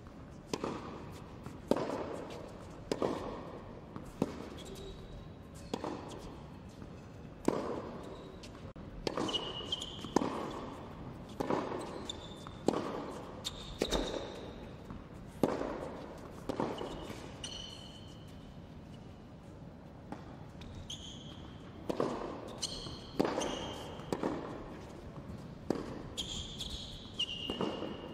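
Tennis practice rally on an indoor hard court: sharp racket strikes and ball bounces in a steady back-and-forth rhythm, roughly one every second or so, echoing in the hall, with short high squeaks of shoes on the court between them.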